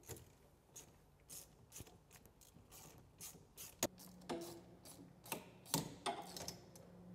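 Faint, irregular metal clicks and scrapes of a hand tool undoing the fasteners of the small strap that clamps the magneto to its plinth on a Stuart Turner P5M engine. A faint low hum runs under the clicks from about halfway.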